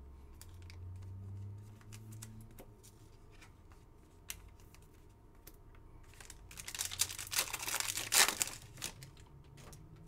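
Foil trading-card pack wrapper being torn open and crinkled, loudest from about six and a half to nine seconds in. Light clicks of cards and packs being handled come before it.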